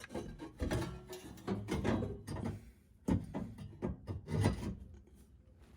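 Irregular clunks and scraping of metal exhaust parts being handled and worked on by hand, one or two knocks a second with short pauses.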